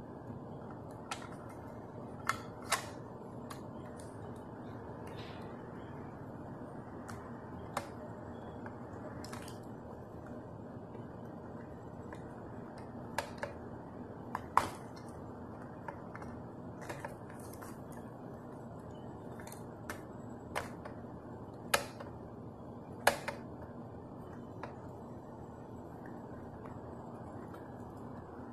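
Scattered sharp clicks and taps, about a dozen, from a First Gear scale-model front-load garbage truck as its lift arms and toy container are worked by hand, over a steady low hiss.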